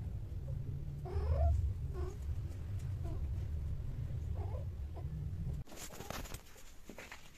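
Cats mating: a few short, wavering yowls and growls over a steady low rumble. About two-thirds of the way through the rumble stops abruptly, leaving faint clicks and rustles.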